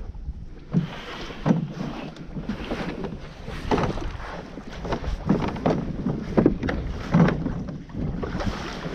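Irregular knocks and thumps of a small boat being handled at the shore, over a steady low rush of wind on the microphone.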